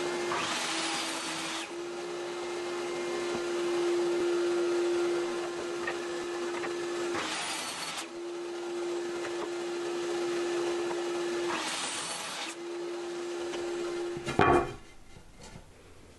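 Electric woodworking power tool running steadily with a hum, making three short cuts into wood, each about a second long and each loading the motor so its pitch dips slightly. The motor stops near the end, followed by a sharp knock.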